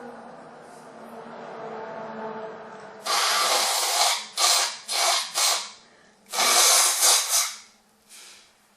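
A person blowing their nose forcefully in a string of loud, harsh blasts starting about three seconds in: a long blow, three short ones, then another long blow.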